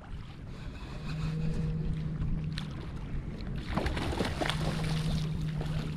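Ocean water lapping against a kayak hull, with wind on the microphone. About four seconds in, a hooked salmon thrashes and splashes at the surface on the line.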